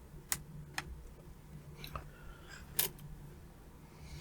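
Four sharp, irregularly spaced clicks from pressing buttons on a laptop, made while bringing up its startup options and BIOS menu. A faint steady low hum runs beneath.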